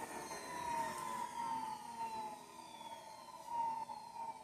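Filter Queen Model LD33 vacuum cleaner motor winding down after being switched off. Its whine falls steadily in pitch and fades away.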